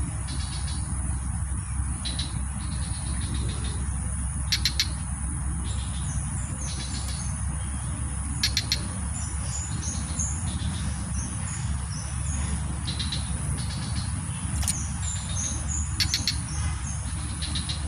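Outdoor ambience: insects chirping in short repeated pulses over a steady high insect whine, with small birds giving brief high calls now and then, over a steady low rumble.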